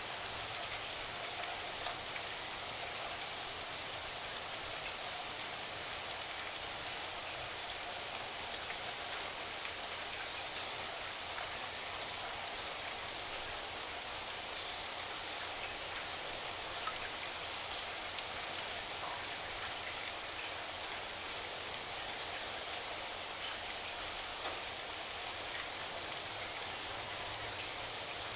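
Steady rain falling: an even hiss with faint scattered ticks of drops.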